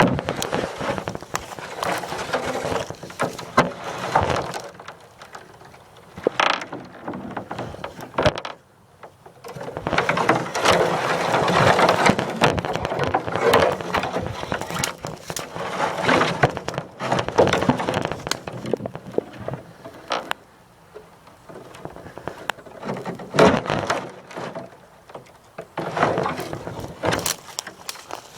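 Irregular crunching and crackling, as of footsteps through dry leaf litter and twigs, with rubbing handling noise on the microphone. It comes in uneven stretches and drops off briefly near the middle.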